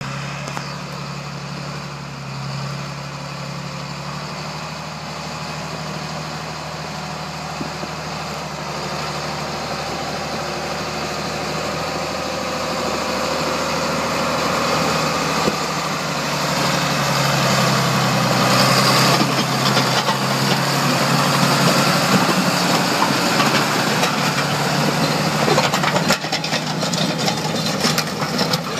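A John Deere tractor's diesel engine runs steadily while it pulls a towed Hese road grader over a gravel road, growing louder as it approaches. In the last few seconds, gravel crunches and scrapes under the grader's blade and tyres as it passes close.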